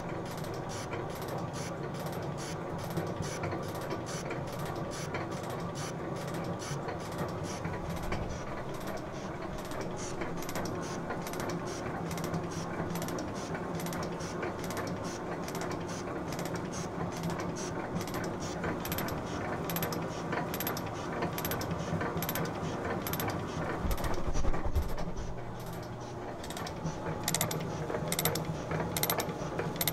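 Sheldon metal shaper making a finishing cut with a round-nosed tool: the machine runs steadily, with a sharp mechanical click repeating at each stroke of the ram. About three quarters of the way through there is a brief low thump.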